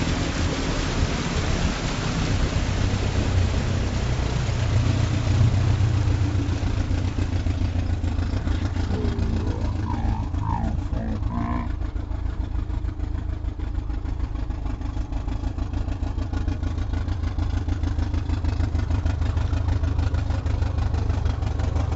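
Mercury 40-horsepower outboard engine running under way, with the rush of water and wind over it. About eight seconds in the rush fades as the boat slows, leaving the engine's steady low hum.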